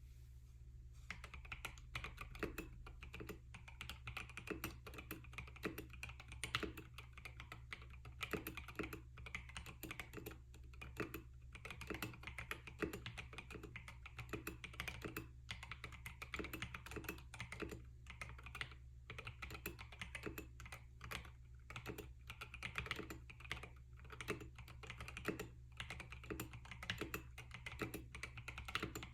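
Fast, continuous typing on a mechanical keyboard fitted with lubricated linear switches (NK Silk Oblivion, Krytox 205g0) and KAT-profile keycaps, with short pauses between bursts.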